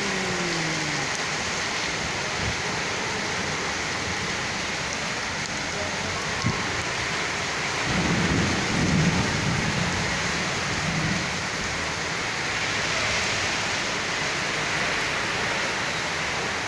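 Heavy mixed hail and rain falling steadily on the street and parked cars, a dense, even hiss. A low rumble swells about eight seconds in and fades by about eleven seconds.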